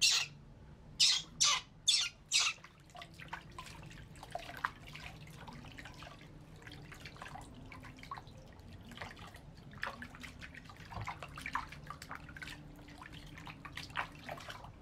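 A baby macaque gives five short, shrill squeals in the first two and a half seconds. After that, water splashes, trickles and drips in a plastic basin as hands scoop and pour it over the monkeys.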